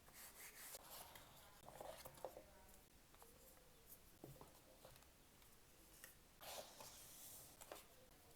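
Faint handling of a tablet's retail box and packaging: soft rustles of paper and plastic with scattered light clicks and taps, a longer rustle about six and a half seconds in.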